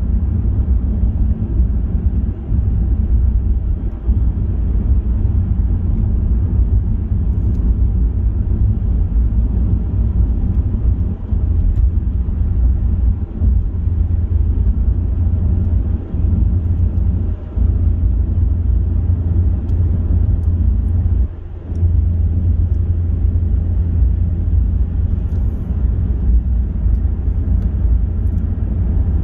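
Steady low rumble of a car driving at motorway speed: road and wind noise with a deep drone, briefly dropping in level about two-thirds of the way through.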